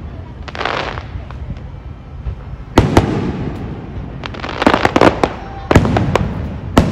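Aerial fireworks shells bursting: sharp booms about three seconds in, near six seconds and at the end, with a rapid run of crackling in between and a hiss near the start.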